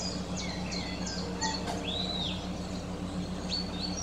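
Small birds chirping, with repeated short high chirps and one longer rising-and-falling call about two seconds in, over a steady low hum.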